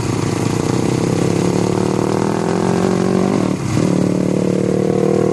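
Small dirt bike's engine running steadily near idle while the clutch is eased out in first gear. About three and a half seconds in the engine briefly sags, then picks back up and keeps running.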